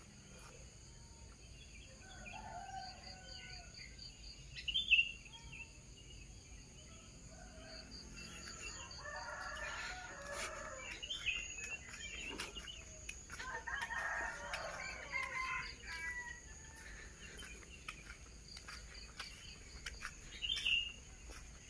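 Roosters crowing several times, the longest crows about ten and fourteen seconds in, over a steady high chirring of insects.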